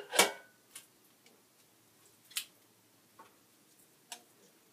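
Kitchen tongs clicking and tapping against a nonstick air fryer basket while chicken wings are turned over: one loud clack right at the start, then a few sharp, scattered ticks.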